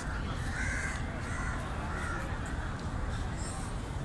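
A bird giving about three short calls in quick succession in the first two seconds, over a steady low rumble.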